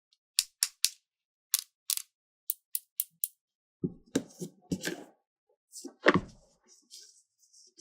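Hands handling toys and their packaging: a quick series of sharp small clicks or snips, then, about four seconds in, a cluster of knocks and taps of small plastic pieces being set down and fitted together.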